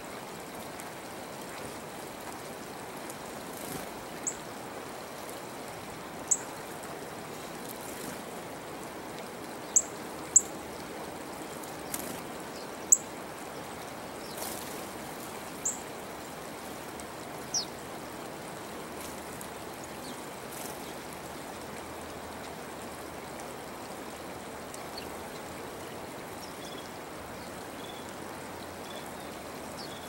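Steady rush of flowing water, with about eight short, high chips from small songbirds at a seed pile scattered through the first twenty seconds, the loudest about ten and thirteen seconds in.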